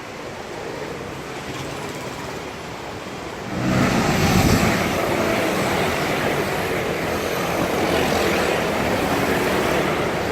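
Road traffic noise from passing motor vehicles. About three and a half seconds in it turns much louder, with a heavy engine rumble at first, and stays loud.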